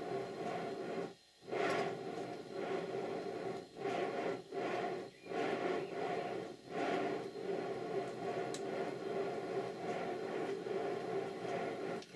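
A 5-inch gauge model Stirling Single locomotive's engine running on the workbench with its wheels turning. It makes a steady, noisy rush that drops away briefly several times, most deeply about a second in.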